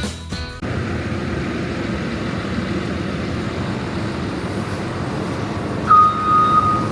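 JCB loading shovel's diesel engine running steadily; about six seconds in its reversing alarm starts, a steady high-pitched tone, as the engine picks up.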